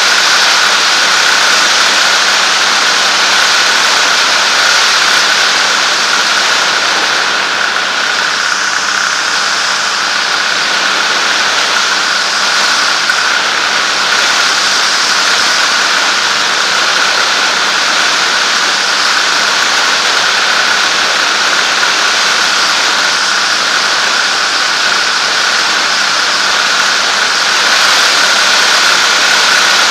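Zenair 701 ultralight's engine and propeller running steadily in cruise flight, a constant drone with a steady high whine, under a loud rush of airflow.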